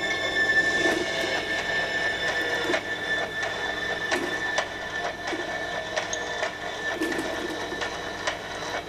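Homemade ring-and-bar magnet motor rig running, its swinging aluminium arm and sprockets turning with a mechanical rattle and irregular clicks over a steady whir.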